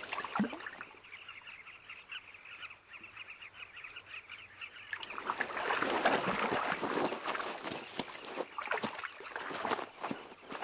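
Carmine bee-eaters calling as a colony, a dense run of short chirps. About halfway through, a louder crackle of scraping and crumbling earth begins, with many sharp clicks, as a crocodile clambers up the loose soil of the nesting bank.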